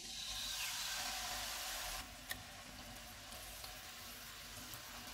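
Yogurt-marinated chicken pieces sizzling in hot oil just after going into the pan. The sizzle is loudest for about two seconds, then drops to a steadier, lower sizzle, with one sharp click a little after two seconds.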